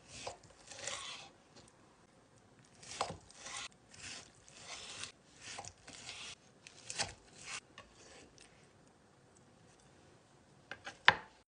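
Kitchen handling noise: a series of short rasping, scraping strokes over the first eight seconds or so, then a pause, then a few sharp knocks near the end, the last one loud.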